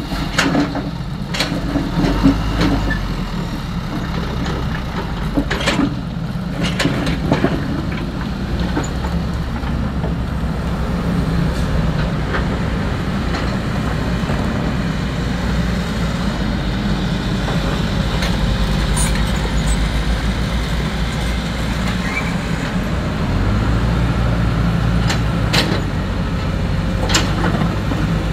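XCMG 75 excavator's diesel engine running steadily under working load, with scattered sharp knocks and rattles from the digging and loading of sand-gravel. The engine note steps up about three-quarters of the way through.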